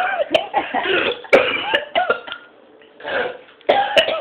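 A person coughing hard, in repeated bursts with a short break past the middle, as dry ground cinnamon catches in the throat.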